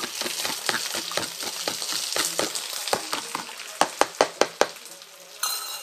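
Fork beating eggs in a plastic container, clicking against its sides about four times a second, with a few louder taps toward the end. Cubed potatoes sizzle steadily in butter in a pan underneath.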